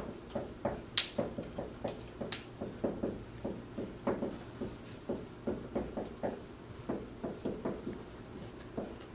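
Dry-erase marker writing on a whiteboard: a quick, uneven run of short strokes and taps, with two brief high squeaks of the tip about one and two and a half seconds in.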